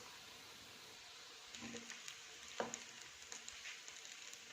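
Bread pakoras sizzling as they fry in hot oil, a steady faint hiss with small crackles, and one short knock a little past the middle.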